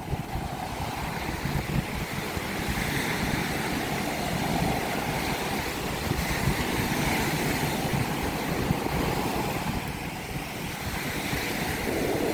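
Ocean surf washing up the beach in slow swells, with wind buffeting the microphone.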